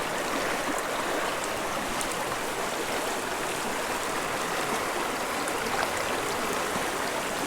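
Small stream water rushing steadily over rocks, an even, continuous wash of running water.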